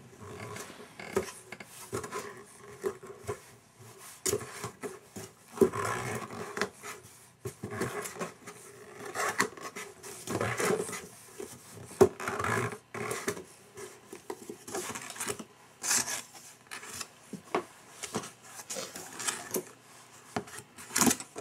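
Cardboard of a diaper box scraping, rubbing and knocking irregularly as a baby sitting in it grabs and pushes at its edges and flaps.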